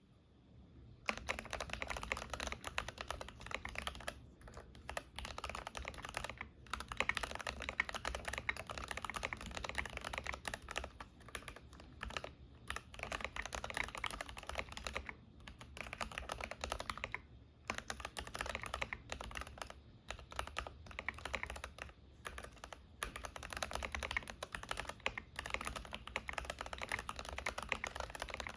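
Continuous typing on a stock Keychron K8 Pro mechanical keyboard with Gateron G Pro Red linear switches and PBT keycaps: rapid clacking keystrokes starting about a second in, broken by a few short pauses.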